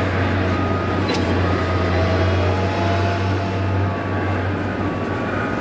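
Distant jet engine noise across an airfield: a steady rumble with a low, even hum, lightening slightly near the end.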